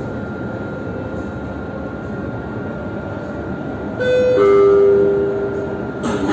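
Steady rumble of a Dubai Tram running, heard from inside the carriage. About four seconds in, the onboard two-note chime sounds: a short higher tone, then a longer lower one, the signal that a next-station announcement follows.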